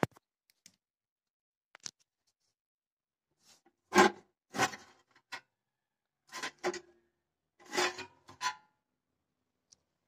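Sheet-metal cover of a home power inverter being pried open and lifted from its case: a sharp click, a few faint ticks, then a string of short metallic scrapes and rattles, each under half a second.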